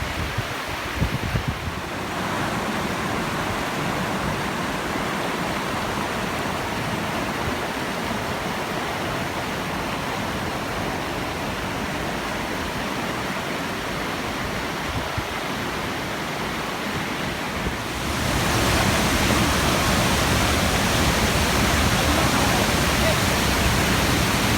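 Rushing water of a waterfall and river, a steady wash of noise that gets louder and brighter about eighteen seconds in.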